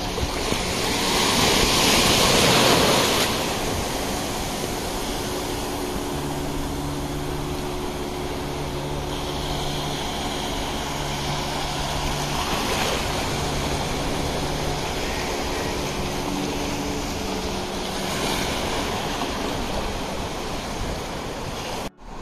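Sea surf washing on a beach, with a louder rush of a breaking wave in the first few seconds, then a steady wash of waves. A faint steady hum runs under it, and the sound drops out briefly near the end.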